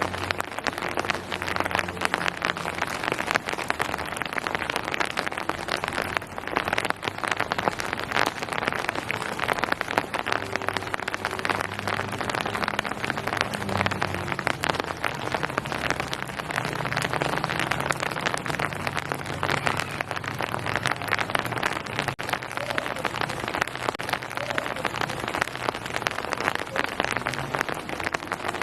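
Steady rain falling on a surface, a dense patter of many individual drops.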